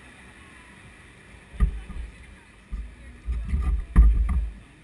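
Wind buffeting and bumping on a bicycle-mounted camera's microphone while riding: a faint steady hiss, then irregular deep rumbling gusts with a few sharp knocks starting about a second and a half in, loudest about four seconds in.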